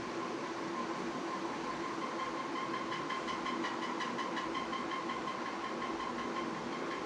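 Ceiling fan running with a steady hum and whine, plus an abnormal noise: a fast, regular chirping that repeats several times a second, starting about two seconds in.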